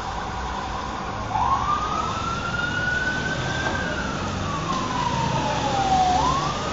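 Police siren wailing: one slow sweep up in pitch starting about a second in, a long slide back down, then the start of another rise near the end, over a low rumble of street traffic.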